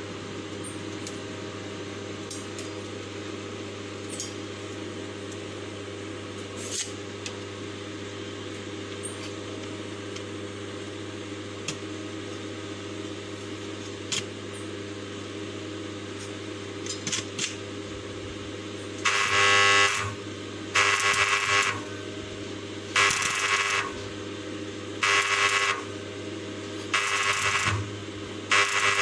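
A hand tool scraping or rubbing in regular strokes, about one every two seconds, over a steady machine hum. Before the strokes begin there are only a few scattered knocks and clicks.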